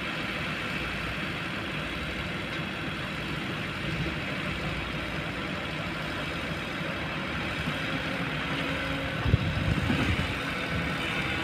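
Kobelco long-boom excavator's diesel engine running steadily, with a sharp clunk about nine seconds in followed by a brief rattle.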